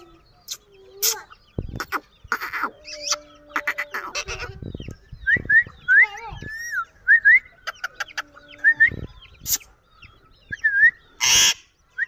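Ring-necked parakeets chattering: many short, quick chirps, clicks and a few harsh squawks, the loudest squawk near the end.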